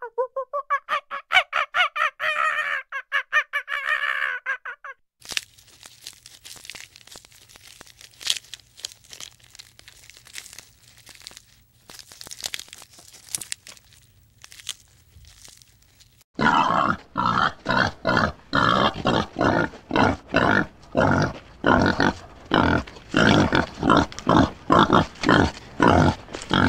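Animal calls in three parts: a rapid, pulsing run of pitched calls for about five seconds, then some ten seconds of quieter clicks and crackles over a low hum, then loud rhythmic grunting, about two grunts a second.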